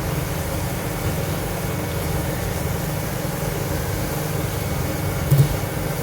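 A steady low hum, like a fan or motor running, with a brief low thump about five seconds in.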